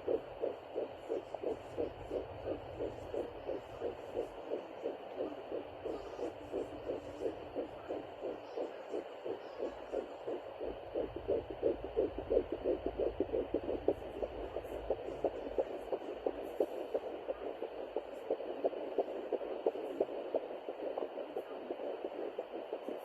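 Handheld home fetal doppler picking up a fetal heartbeat at about ten weeks of pregnancy: fast, even, whooshing pulses heard through the doppler's speaker over a low rumbling hiss.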